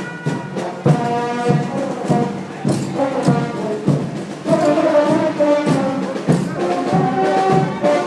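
Live brass band playing a dance tune, with trumpets and trombones carrying the melody over drum beats about twice a second.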